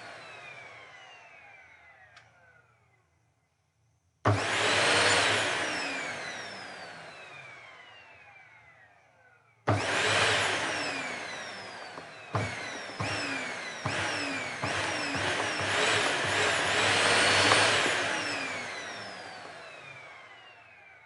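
Vacuum cleaner motor whining in repeated bursts. Each burst starts suddenly and then falls steadily in pitch as it dies away. There are two single bursts, then a quick run of several close together, before the sound fades out.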